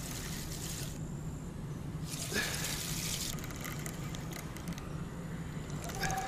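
Fishing reel being wound in with a hooked crucian carp on the line, with rushing water noise and light clicks from about halfway through.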